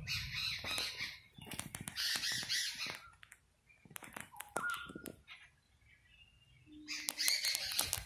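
Birds calling: three harsh, rasping bursts of about a second each, near the start, around two seconds in and near the end, with a short clear chirp near the middle.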